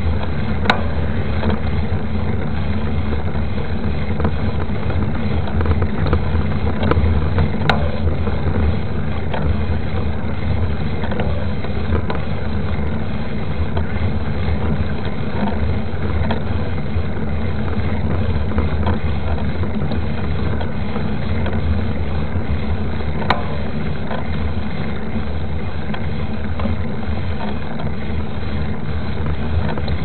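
Steady rumbling wind noise on the microphone of a camera mounted on a moving mountain bike, with the hum of the knobby tyre on asphalt. A few sharp clicks and rattles from the bike come through, about a second in, near eight seconds and again around twenty-three seconds.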